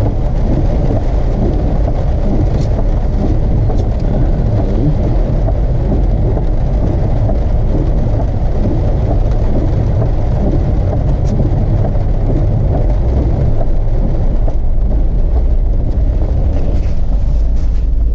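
Car driving, heard from inside: a steady low rumble of engine and tyre noise. Near the end the rougher mid-range noise drops away and a low hum is left, as if the car slows.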